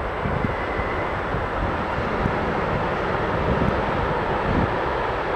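Container freight train running across a concrete railway flyover: a steady, continuous rumble of wheels and wagons.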